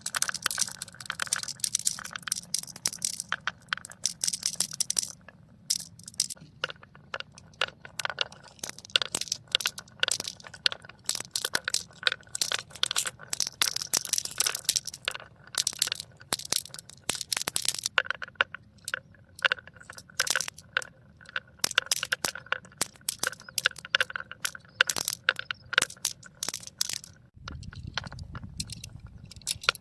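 Marbles rolling and clattering down a marble run: a dense, irregular stream of clicks and knocks as they hit the track and each other. About two seconds before the end the clicks thin out and a low rumble comes in.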